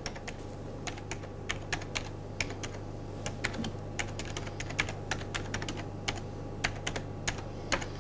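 Computer keyboard typing: irregular clicking keystrokes as an email address is typed out, a few keys a second, over a steady low hum.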